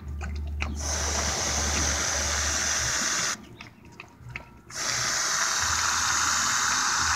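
Aerosol can of Hershey's chocolate whipped cream spraying with a steady hiss, in two long bursts with a pause of about a second and a half between them.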